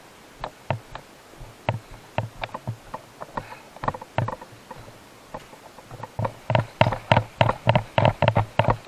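Footsteps on dry ground: spaced steps at first, then from about six seconds in quicker and louder, about three or four a second, as the walker breaks into a jog.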